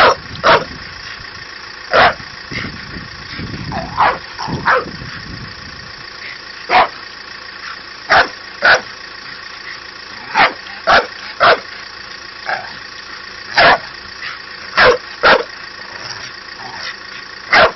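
A dog barking: about fifteen short, sharp barks at irregular intervals, several coming in quick pairs about half a second apart.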